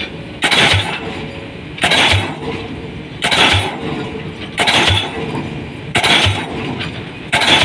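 Pile-driving hammer striking a 500 mm round concrete pile, six heavy blows about one every 1.4 seconds, each a sharp impact followed by a low thud, over a steady machine rumble. These are the final-set blows, counted one by one to measure how far the pile sinks per blow.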